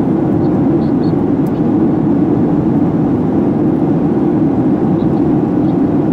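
Steady drone of a Boeing 737-800 in flight heard from inside the cabin: its CFM56 turbofan engines and rushing airflow make a constant low, dense rumble.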